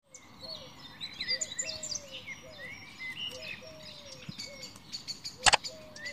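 Several birds singing and chirping at once, with many quick high chirps and whistles over a repeated lower, falling call. A single sharp click sounds near the end.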